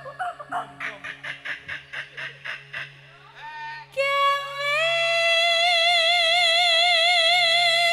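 A woman sings live with a band backing her. First comes a quick series of short, evenly spaced notes, about five a second, then a brief upward slide, and from about four seconds in one long high note held with a slight vibrato.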